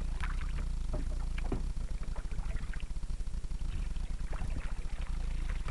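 Canoe paddling: the paddle dipping and splashing in the water in scattered short strokes, over a steady low rumble of wind on the microphone.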